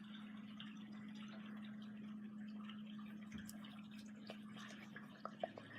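Faint wet stirring of a foamy slime mixture as cornstarch is folded into it with a spoon, with a few soft clicks near the end, over a steady low hum.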